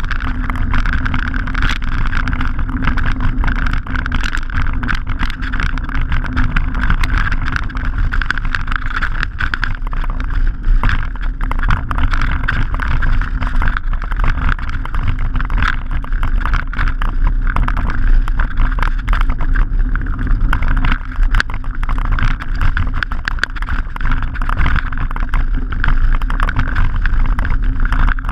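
Mountain bike riding over a loose gravel track, heard from a handlebar-mounted camera: knobbly tyres crunching on stones and the bike rattling, a constant stream of small clicks and knocks over a low rumble of wind on the microphone.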